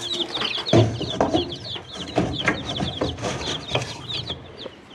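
Baby chicks peeping continuously in a brooder, many short high falling cheeps overlapping. A few sharp knocks and a dull thump about a second in.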